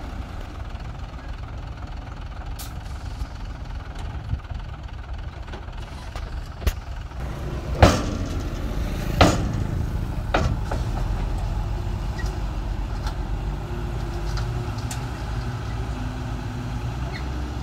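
Diesel dump truck engine running steadily while its raised tipper bed unloads soil. A few sharp knocks come midway, the two loudest about a second and a half apart.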